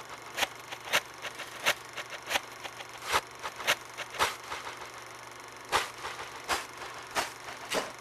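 A run of sharp, dry clicks and snaps at irregular intervals, about three a second, with a pause in the middle, over a faint steady low hum.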